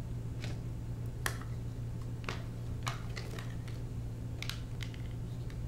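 Equipment being handled: several light clicks and knocks as a Lowel Blender LED light unit is set down and a power supply and its cable are pulled from a padded nylon bag, over a steady low hum.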